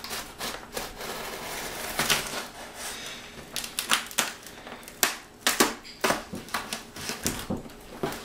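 Fingernails picking and scratching at the taped flap of a cardboard box: an irregular string of sharp clicks and scrapes, as the box is worked open.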